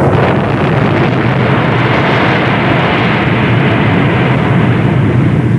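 Continuous rumble of an atomic bomb test explosion, a dense, even noise that holds steady at full loudness.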